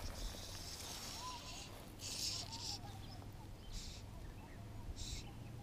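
Fly line being stripped in by hand through the rod guides, a short swish with each pull, four or five pulls about a second apart. Faint bird chirps in the background.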